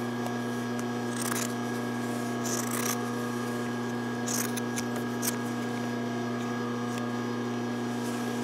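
Scissors snipping through thick terry cloth towel fabric as a towel's seam is trimmed off, a handful of short cuts in the first five seconds or so. A steady electrical hum runs underneath.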